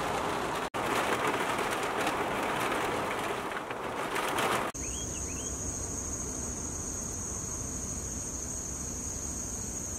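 Heavy rain falling on the roof of a Scamp fibreglass travel trailer, heard from inside as a dense steady hiss with a brief break near the start. About halfway through it cuts off suddenly, giving way to a steady high-pitched insect trill, with two short bird chirps just after the change.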